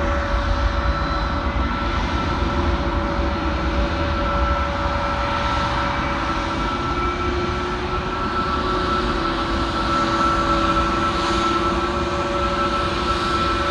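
Jet airliner engines running with a steady whine, one tone climbing slightly in pitch about halfway through, over a low rumble.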